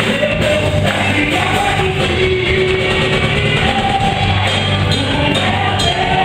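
Live gospel worship music from a band with a singer, with steady bass and drums.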